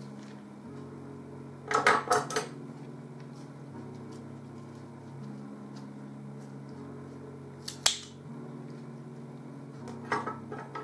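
Small metal scissors clicking and clinking as they cut dead root tips and stuck bark off orchid roots and are set down on a wooden table. There is a quick cluster of clicks about two seconds in, one sharp click around eight seconds, and another cluster near the end, over a low steady drone.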